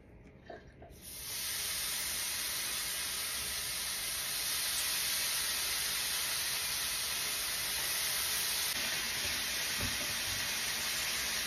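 Bacon strips sizzling on a hot electric griddle: a steady sizzle that starts about a second in as the first strips go down.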